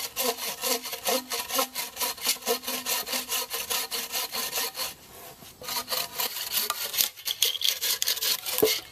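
Wooden-framed bow saw cutting through a wooden pole with quick, even back-and-forth strokes, about four a second. There is a short pause about five seconds in before the sawing picks up again.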